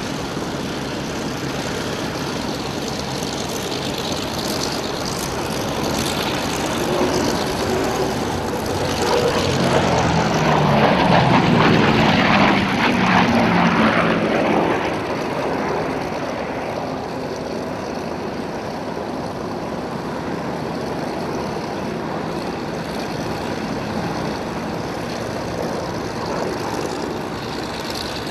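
Grumman F7F Tigercat's twin Pratt & Whitney R-2800 radial engines and propellers, a loud drone that swells to a peak a little before halfway through as the plane passes, then fades back down.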